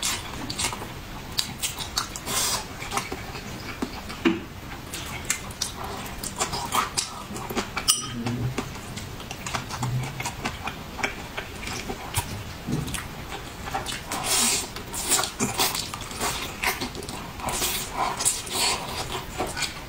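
A person eating: chewing mouthfuls of braised pork ribs and rice, with irregular mouth sounds and short sharp clicks throughout.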